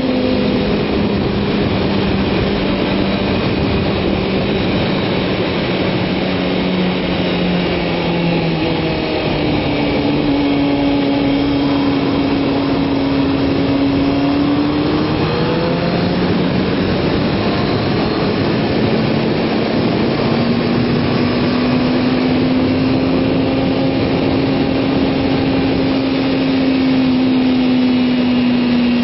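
Kawasaki ZX-6R's inline-four engine running at track speed over a steady rush of wind. The engine note drops about eight seconds in, climbs, falls again around fifteen seconds, then rises and holds steady: the throttle being closed and reopened through the corners.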